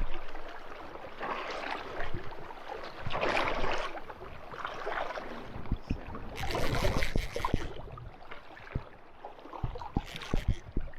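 River water sloshing and splashing in several surges, with a few light knocks.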